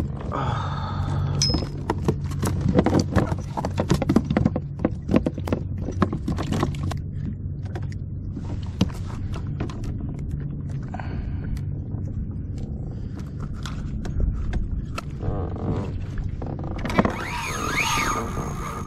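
Clicks, knocks and light clatter of fishing tackle being handled on a plastic kayak deck, thickest in the first several seconds and then sparser, over a steady low hum, with a warbling pitched sound near the end.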